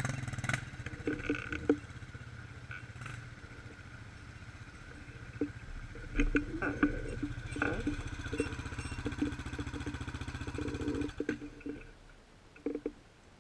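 A quad (ATV) engine idling steadily, with scattered light clicks and knocks over it. The engine sound cuts off about eleven seconds in, leaving only a couple of faint clicks.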